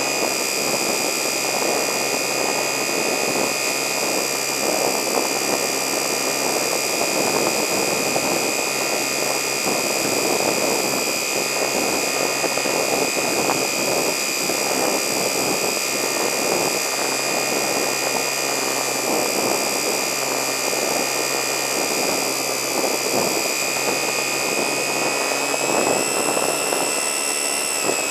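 Electric motor and propeller of a HobbyZone Super Cub RC plane heard from a camera mounted on the plane in flight. A steady high-pitched whine runs over a rush of propeller wash and air, shifting slightly in pitch near the end.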